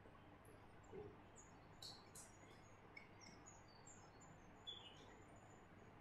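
Small birds chirping faintly: many short, high chirps scattered throughout, the loudest about two seconds in.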